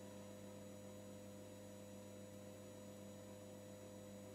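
Near silence: room tone with a faint, steady electrical hum.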